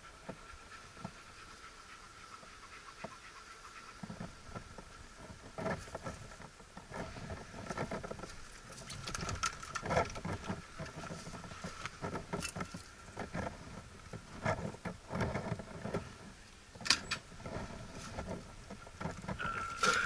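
Irregular knocks and scrapes of wooden beehive boxes and frames being handled, mixed with puffs from a beekeeper's bellows smoker. A faint steady high whine runs underneath.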